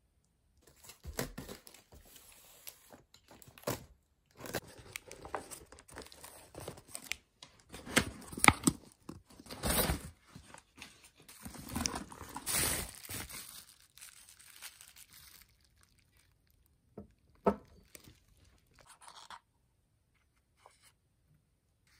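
Parcel being unpacked by hand: paper and cardboard packaging rustling and crinkling in irregular bursts, with a couple of light knocks later as a small paper box is opened.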